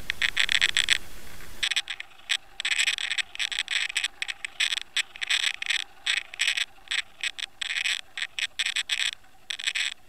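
Water rushing over a Water Wolf underwater camera towed on a fishing line: irregular crackling, scraping bursts of hiss, several a second. A steady background hiss drops away about two seconds in.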